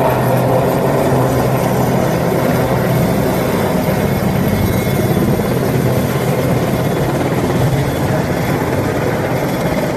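Westland Sea King search-and-rescue helicopter lifting off and climbing away, its rotor and twin turbines making a loud, steady noise with a low hum underneath.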